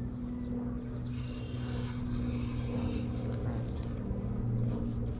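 A steady, even-pitched low motor drone.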